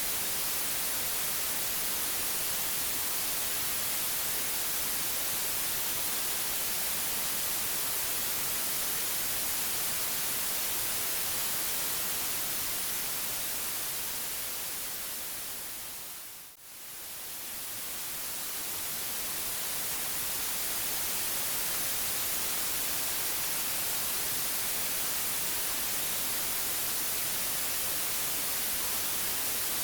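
Synthetic white noise, a steady hiss strongest in the high end. About halfway through it fades down to a brief low point and then fades back up, like a loop seam.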